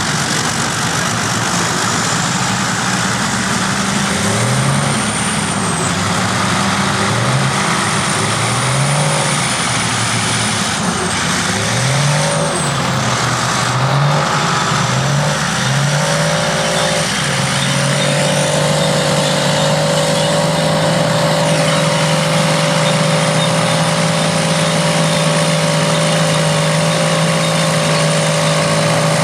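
Engines of vintage crawler bulldozers and scrapers working. An engine revs up and down about eight times in quick succession, then settles to a steady, even pitch under load for the rest of the time.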